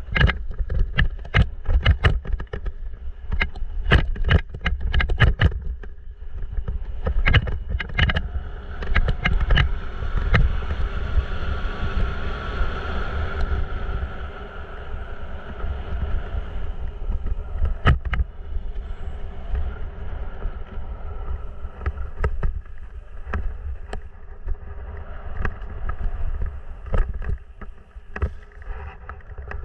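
Mountain bike riding fast down a rough dirt trail, heard from a camera mounted on the bike or rider: frequent sharp knocks and rattles as it goes over bumps, over a steady low rumble of tyres and wind.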